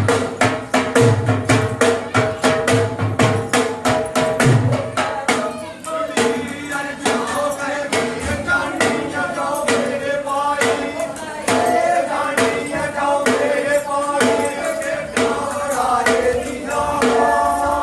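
Music with a fast, steady percussion beat of about four strokes a second. About five seconds in, a wavering melodic line joins over the beat.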